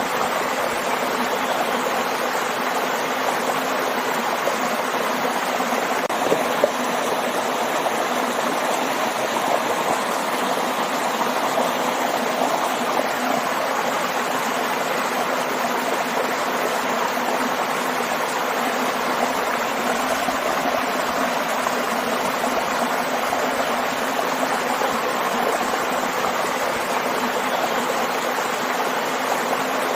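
Water of a stream and waterfall rushing and splashing over rocks, a steady, even wash of sound.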